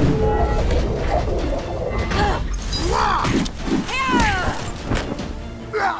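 Dramatic background music under fight sound effects: crashes and clanking impacts, with two short pitched cries that rise and fall about three and four seconds in.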